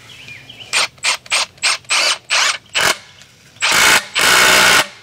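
Power drill run in short trigger bursts, about three a second, then two longer runs near the end; very loud.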